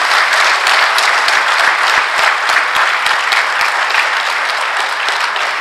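A large seated audience applauding, with dense, steady clapping that eases a little near the end.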